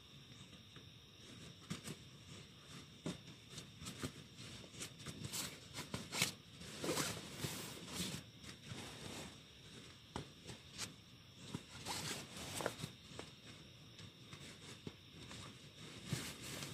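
Scattered rustling and scraping with light clicks and knocks, as of things being handled, over a faint steady hiss.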